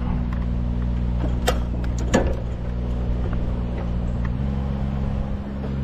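Engine idling steadily, its pitch stepping up slightly about four and a half seconds in, with a couple of sharp knocks about one and a half and two seconds in.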